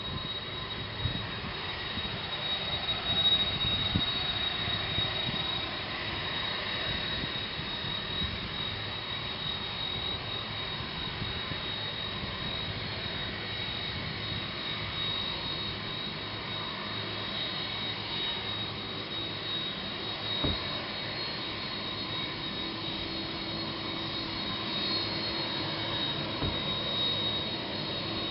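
Boeing 767-200's twin jet engines at taxi power: a steady rushing noise with a high whine held on one pitch. In the last few seconds a lower steady hum joins in.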